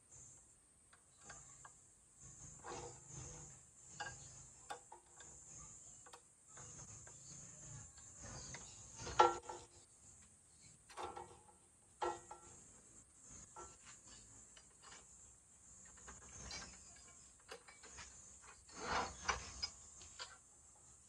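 Metal clicks, knocks and scraping from adjusting and clamping the steel vise fence on the base of a Bosch GCO 220 cut-off saw, its hex bolts worked with a key and its vise screw turned by hand. The sharpest knock comes about nine seconds in, and there is a cluster of clatter near the end.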